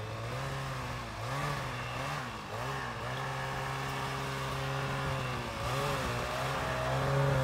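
Snowmobile engine revving up and down in short blips, then running steadier, as the sled is ridden up over a snowbank onto a pickup's bed. It grows louder near the end.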